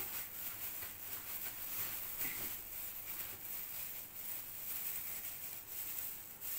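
Thin plastic food-prep gloves rustling and crinkling while hands dip breaded potato chicken sticks in beaten egg and press them into breadcrumbs, a steady soft rustle with many small ticks.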